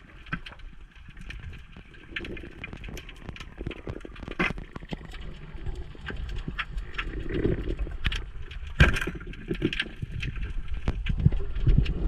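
Underwater sound heard through an action camera's housing: scattered clicks and knocks that grow busier and louder, with one sharp snap about nine seconds in.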